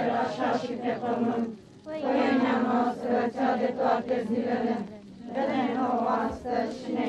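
Crowd of mourners chanting a funeral prayer together in unison, in sustained sung phrases with short breaths about two and five seconds in.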